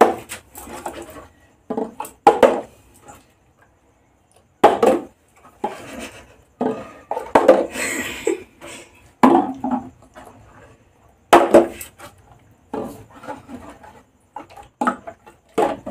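Plastic water bottle, partly filled, flipped over and over and landing on a hard tabletop with a knock and a thud, often toppling onto its side: failed bottle flips. The knocks come about every two seconds.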